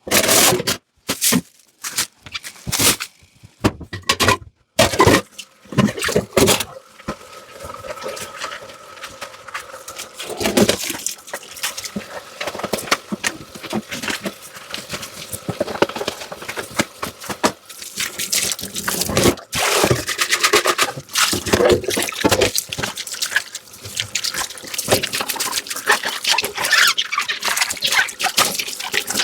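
Dishes being washed by hand in a kitchen sink: water running and splashing, with clinks and knocks of dishes and utensils. The first several seconds are separate sharp knocks; after that the sound turns steadier, with frequent small clicks.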